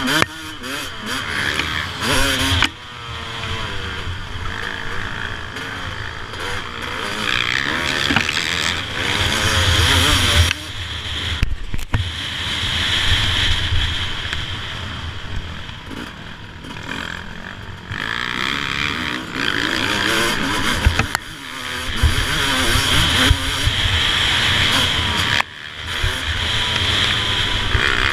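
2007 Suzuki RM250 single-cylinder two-stroke motocross engine ridden hard on a dirt track, revving up and dropping off again and again through the gears, with brief cuts where the throttle is shut.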